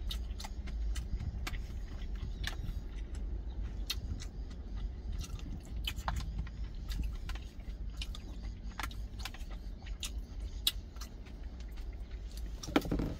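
A wooden utensil clicking and scraping against a stainless steel lunch tin, with chewing, in scattered sharp clicks over a steady low rumble.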